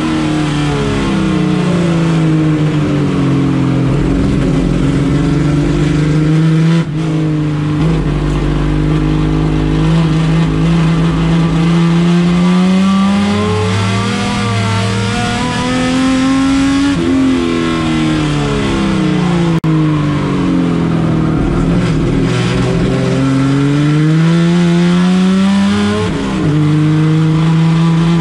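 Race car engine running hard, its pitch climbing and falling back several times as it accelerates and lifts, with sudden drops in revs about 17 and 26 seconds in.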